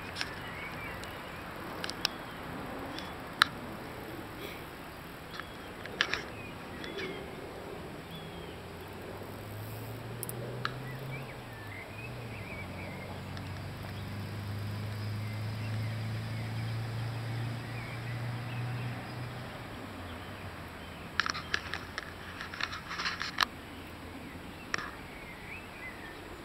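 Quiet lakeside outdoor ambience with a few faint bird chirps and scattered sharp clicks, which come as a rapid cluster near the end. A low steady hum runs through the middle for about ten seconds.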